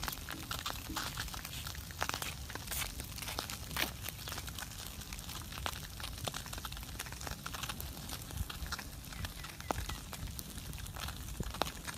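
Open wood fire crackling, with irregular sharp pops and snaps over a low steady rumble.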